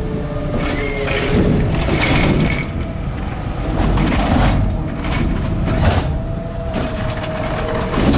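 Hydraulic automated arm of a McNeilus ZR side-loader garbage truck reaching out, gripping a wheeled recycling cart and starting to lift it. A steady mechanical tone rises over the truck's running engine, with about eight sharp metal clanks from the arm's gripper and joints.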